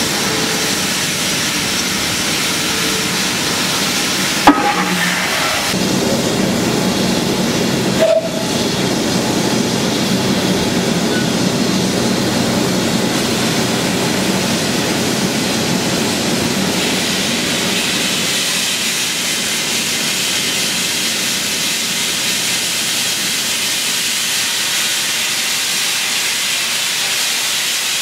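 Steam hissing steadily from GWR 5600-class 0-6-2T tank engine 5643, standing at the head of its train. A sharp metallic knock comes about four and a half seconds in and a smaller one about eight seconds in.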